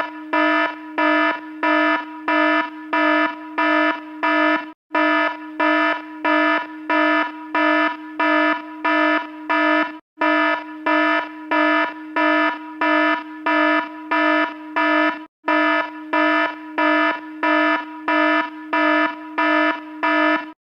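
Fire alarm going off: a loud buzzing horn tone pulsing on and off a little over twice a second, with a short break about every five seconds.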